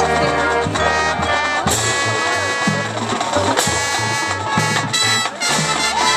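Marching band brass section playing loudly, with sharp accented chords over a moving low brass line.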